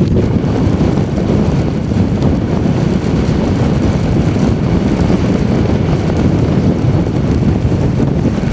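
Blizzard wind of 50 mph or more buffeting the microphone: a loud, steady, low rumbling roar of wind noise.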